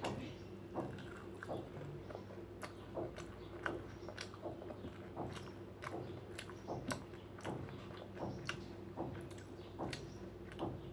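Close-miked eating: a person chewing and biting rice and fried fish roe, with wet mouth smacks and small clicks coming irregularly, several a second, over a faint steady hum.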